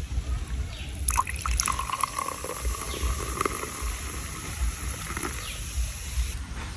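Water trickling, over a low rumble and a steady high hiss that stops near the end.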